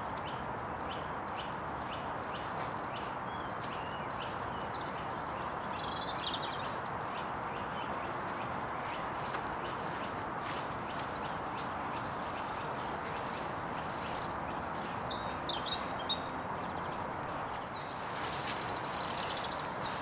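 Birds chirping in many short, high calls over a steady background hiss, with faint footsteps through grass.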